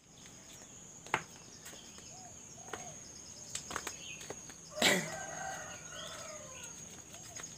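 Chickens clucking, with a loud sudden flutter about five seconds in followed by a wavering squawk, over a steady high-pitched insect buzz.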